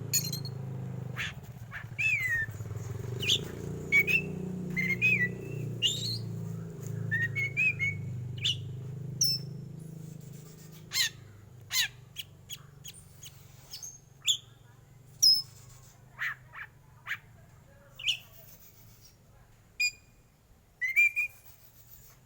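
Black oriental magpie-robin (kacer hitam) singing: a string of short, sharp calls and quick whistled notes sliding up and down in pitch. A low background rumble underneath fades out about halfway, leaving separate sharp calls about a second apart.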